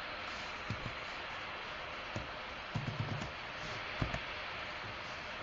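Occasional computer keyboard keystrokes over a steady background hiss, a few scattered clicks and a short cluster of taps about three seconds in.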